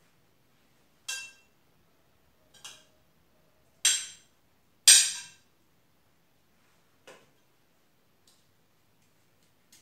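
A kitchen utensil clinking against a bowl: six or seven sharp, irregular knocks with a short ring, the two loudest about four and five seconds in, while avocado flesh is scooped out and knocked into the bowl.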